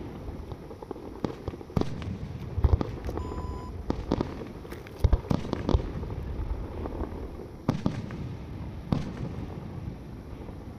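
Fireworks display: aerial shells bursting with sharp bangs at irregular intervals over a continuous low rumble and crackle, the loudest reports about five seconds in. A short, steady electronic beep sounds a little after three seconds in.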